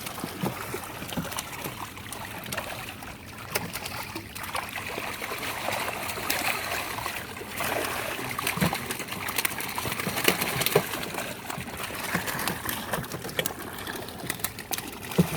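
Flowing river water, a steady rushing trickle with many small splashes and knocks throughout.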